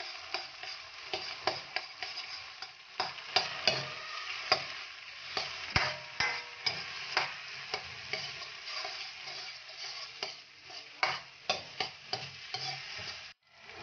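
Metal ladle scraping and clacking against a wok in quick, irregular strokes while egg, chicken and chillies sizzle steadily in hot oil; the scrambled egg is being stirred and broken up. The sound drops out briefly near the end.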